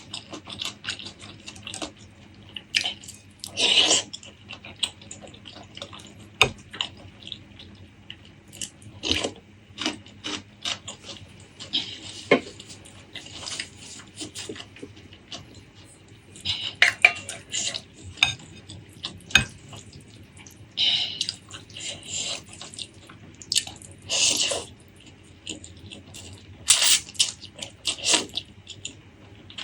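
Close-miked eating sounds: irregular wet chewing, smacking and squishing, with now and then a clink of cutlery against a dish.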